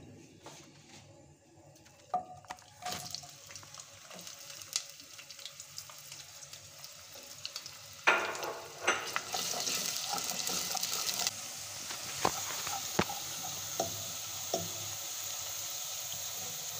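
Sliced onions frying in hot oil in a nonstick pot. The oil sizzles faintly at first; about eight seconds in the onions go in and it starts sizzling loudly, then settles into a steady frying sizzle with a few sharp clicks.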